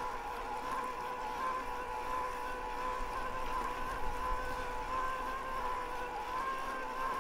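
Yamaha PW-SE mid-drive e-bike motor whining steadily under pedal assist, a high hum whose pitch wavers slightly with the rider's cadence, over light wind and tyre hiss.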